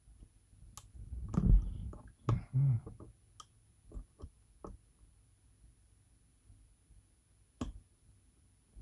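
Scattered small clicks and taps of a lock pick and tension wrench working the pin stacks of a Goal D9 lock, with a cluster of louder knocks and handling noise between about one and three seconds in.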